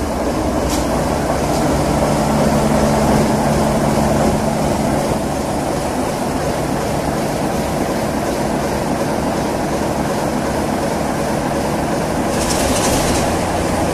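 Class 33 diesel locomotive's Sulzer eight-cylinder engine running steadily close by, a loud, even sound with a low hum, and a short hiss near the end.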